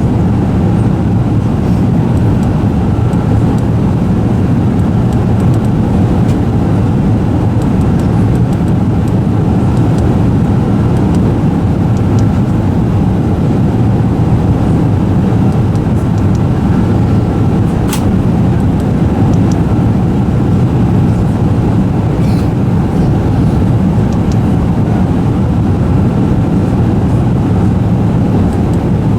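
Steady rumble of engine and airflow noise inside the cabin of an Airbus A380 with Rolls-Royce Trent 900 engines, with a faint intermittent tone and a single sharp click a little past halfway.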